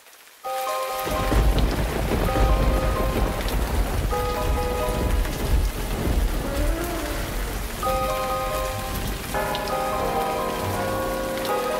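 Heavy rain hissing over a continuous low rumble of thunder in a thunderstorm. A ringing tone sounds about every two seconds, and several notes ring together from about nine seconds in.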